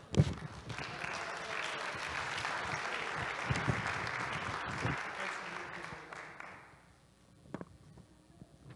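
Congregation applauding for about six seconds, dying away near the end. A sharp thump comes just as it begins.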